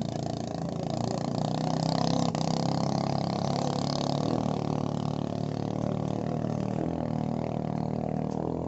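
Small boat engine running steadily at a constant pitch, growing a little louder about two seconds in and easing off again.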